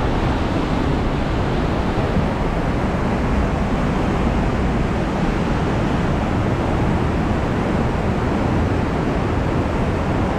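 Mountain river rushing through a narrow rock gorge: a loud, steady rush of white water.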